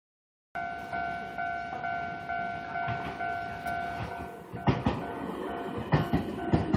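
Japanese level-crossing alarm ringing in a steady repeating two-tone ding, about two strokes a second, starting half a second in. About two-thirds of the way in, sharp knocks join it: the wheels of a Keio Inokashira Line train clacking over the rail joints as it passes.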